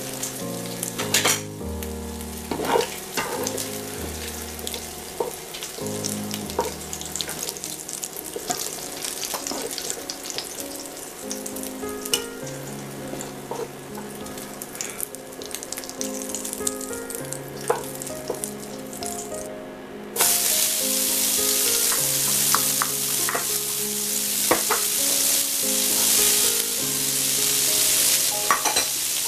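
Bacon fat sizzling in a nonstick pan, with a wooden spatula and a metal slotted skimmer scraping and clicking against the pan as the crisp bacon is lifted out. About two-thirds of the way through the sizzle turns suddenly louder and brighter, with diced onion and carrot frying in the hot fat. Soft background music with held notes plays throughout.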